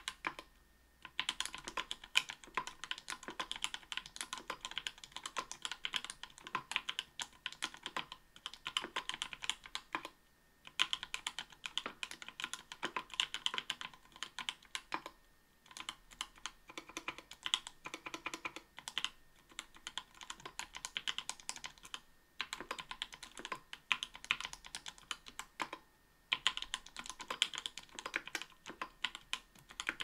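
Typing on an Octagon V3 mechanical keyboard with an aluminium plate, GMK keycaps and Everglide Amber Orange 58 g linear switches lubed with Krytox 105: fast runs of key clacks broken by brief pauses every few seconds.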